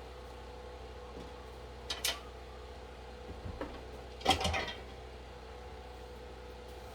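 Two short clattering knocks of objects being handled and set down, the louder one about four seconds in, over a steady hum.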